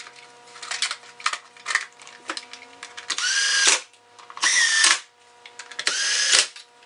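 Cordless drill/driver driving in the screws of a chainsaw's plastic top cover in three short bursts, each about half a second long, the motor's pitch rising and then holding. Before them come clicks and clatter as the cover is handled.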